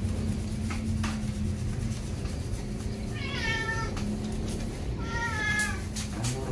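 Maine Coon cat meowing twice while being shampooed in a bath; each meow lasts under a second, and the first falls in pitch.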